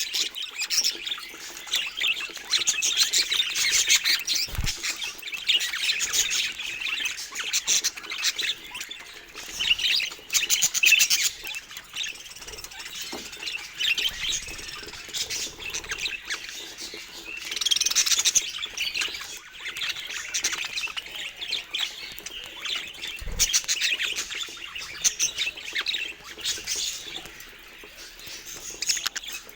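Budgerigars chattering: a dense, rapid twittering warble that keeps going and swells in several louder spells.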